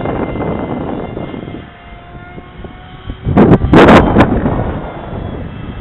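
Hobby King Skyfun RC plane's electric motor and propeller whining in flight, with a loud burst of rushing noise lasting about a second, starting about three and a half seconds in.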